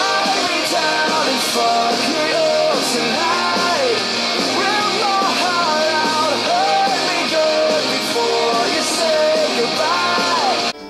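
A rock song with a sung lead vocal over guitars and drums, cutting off abruptly near the end.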